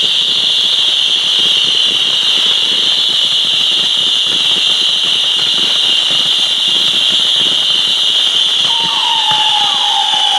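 Fireworks giving a continuous high-pitched whistle, with fine crackling underneath. A second, lower whistle joins near the end.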